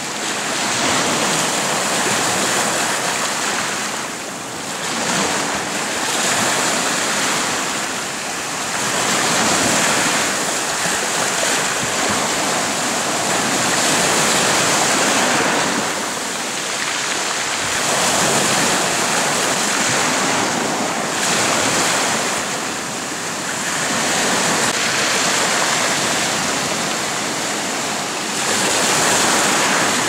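Sea surf: small waves breaking and washing over rocks at the shoreline. The wash rises and falls in surges a few seconds apart.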